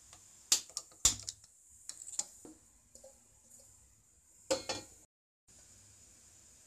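Metal kitchenware clinking and knocking: a stainless-steel pot and utensils, with several sharp clinks in the first two and a half seconds and a louder cluster about four and a half seconds in. The sound then cuts out briefly.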